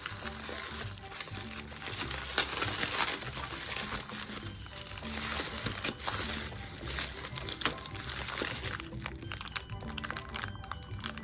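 Tightly wrapped packaging crinkling and rustling as it is unwrapped by hand, with many small crackles, over background music.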